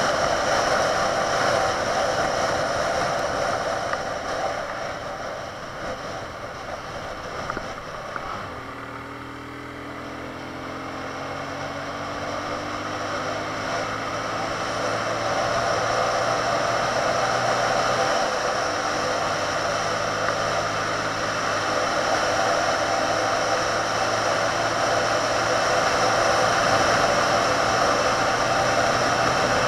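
Benelli 150S motorcycle riding on the road, heard through wind rushing over the mount-mounted camera's microphone. The wind noise eases for a few seconds partway through. The engine's pitch then climbs as the bike accelerates again, and it settles back to a steady cruise.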